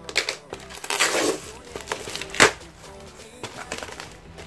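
A cardboard box and its plastic wrapping being handled and torn open in crackling, rustling bursts, with one sharp crack about two and a half seconds in.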